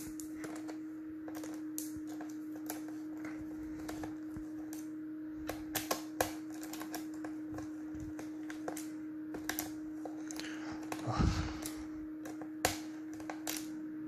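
Small cross-head screwdriver turning screws out of a laptop's plastic bottom panel: a run of light, irregular clicks and scrapes over a steady low hum, with a louder handling rustle about eleven seconds in.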